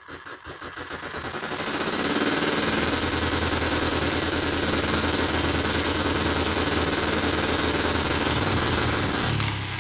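Enjomor hit-and-miss model engine, single-cylinder, catching after a hand spin of the flywheel. It speeds up over the first couple of seconds, then runs fast and steady, firing without missing, since its governor is not yet working. Its sound dips briefly near the end.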